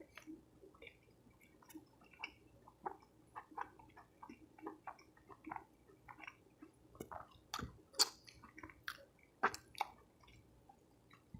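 A person chewing a soft taco close to the microphone: irregular wet chewing clicks, with a few louder clicks about eight and nine and a half seconds in.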